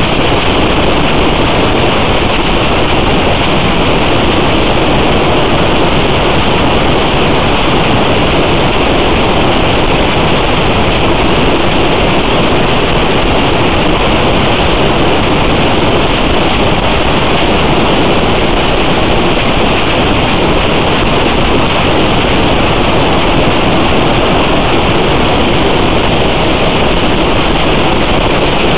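Steady, loud hiss of static on the analog FPV video link's audio, even and unchanging, with no motor tone in it.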